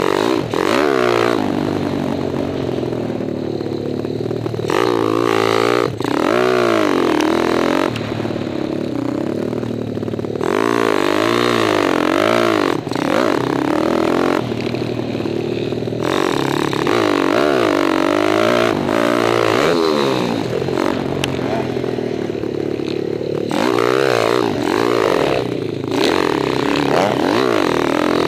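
Kawasaki KLX 177 stroker dirt bike's single-cylinder four-stroke engine, heard from on board, revving up and dropping back again and again as it accelerates and backs off through the turns.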